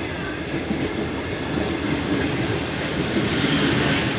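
Steady rumble and rush of train wheels on rails, heard from inside a passenger coach as another passenger train's coaches pass close alongside. The noise swells near the end.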